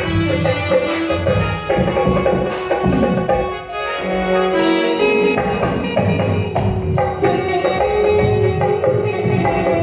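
Live band music played as a sound test: an even percussion rhythm with jingling strikes under held melody notes, which pause briefly about four seconds in.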